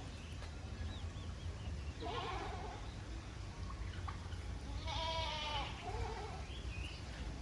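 An animal calling twice with wavering, bleat-like calls about three seconds apart, with a few short faint chirps between them.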